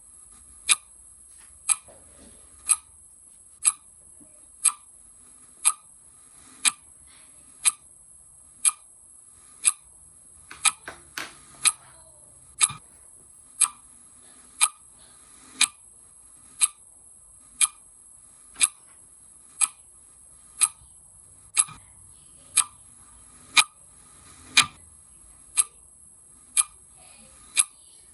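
Clock ticking steadily, one sharp tick a second. A few softer extra clicks fall about eleven seconds in, over a faint steady high hiss.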